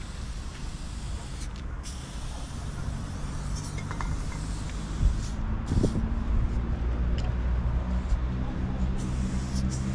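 A large engine running, a low steady hum that swells from about three seconds in, with a sharp thump about five seconds in. Short hisses of an aerosol spray-paint can sound over it.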